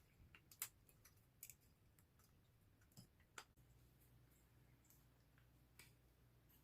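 Near silence with a few faint, scattered clicks and light taps. A low steady hum comes in about three and a half seconds in.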